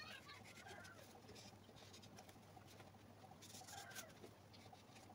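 Faint scratching of a marker on pattern paper as an outline is traced, with light paper rustling under the hands.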